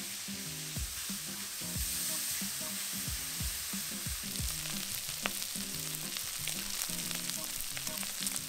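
Chicken and broccoli stir-frying in a hot wok: a steady sizzle, with a spatula stirring and tossing the food.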